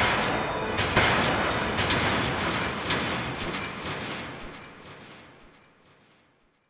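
Shattering sound effect: a sudden crash, then a dense run of small cracks and clicks like falling debris, fading away over about five seconds.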